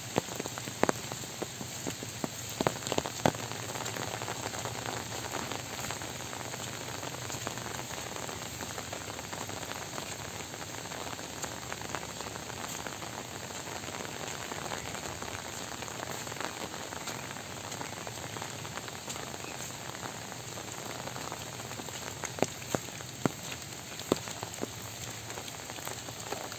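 Soft rain falling steadily, an even hiss, with a few sharp taps in the first few seconds and a cluster again near the end.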